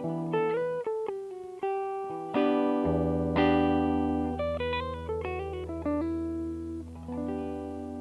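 Electric guitar played through an optical compressor pedal and a cab simulator: a phrase of picked single notes and a few chords, each note held with a long, even sustain.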